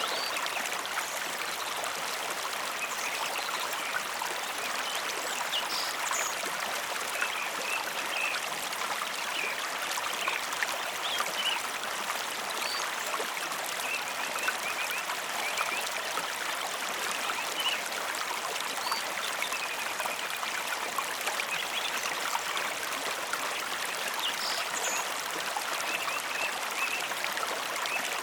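Mountain river running steadily, an even rushing and babbling of water, with faint short high chirps scattered through it.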